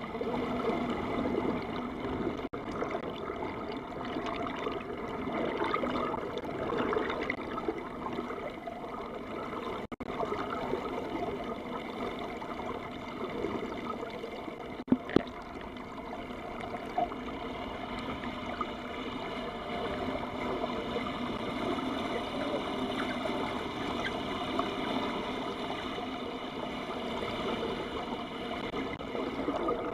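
Water rushing along a moving boat's hull, heard underwater through a camera housing as a steady churning noise. Two sharp clicks come about halfway through.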